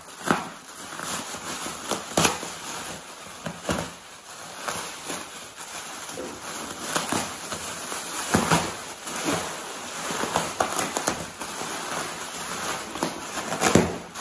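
Plastic bubble wrap being cut open and pulled away by hand, quite noisy: continuous crinkling with frequent sharp crackles.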